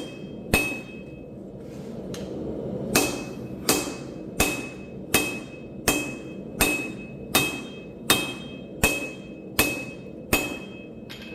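Hand hammer blows on hot steel at the anvil while forging, about a dozen strikes at a steady pace of roughly one every three-quarters of a second, with a pause of about two seconds near the start. Most blows leave a brief high metallic ring.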